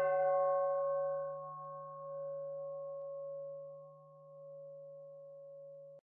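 A single struck bell-like chime ringing out and slowly fading: its higher tones die away within about two seconds while a low hum and a clear mid tone carry on, swelling and ebbing gently as they fade. It is the sound logo laid over the closing brand screen.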